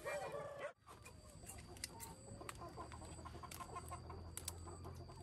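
Chickens clucking faintly in short, repeated calls. The sound drops out for a moment just under a second in.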